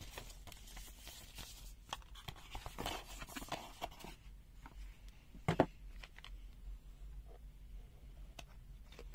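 Paper and a cardboard box being handled: rustling and scraping, with one sharp knock about halfway through that is the loudest sound, then quieter handling with a few light clicks.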